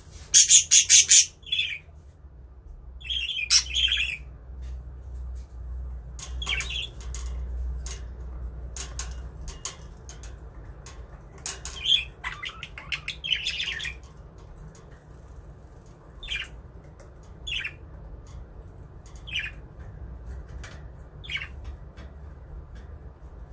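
Pet budgerigars calling: a loud, harsh burst of squawks in the first second and another a few seconds later, then scattered chirps and chatter, thinning to single short calls about every two seconds.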